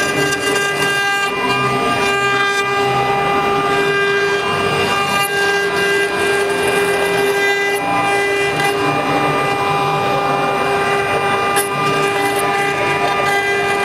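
A 9018 desktop CNC router's spindle running at speed with a steady whine, its bit carving a relief into a wooden panel with a rough cutting noise underneath.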